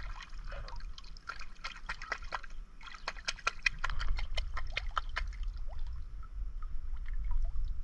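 Shallow seawater splashing and dripping as a sea urchin is swished about in it by hand and lifted out, a quick patter of many small splashes and drips.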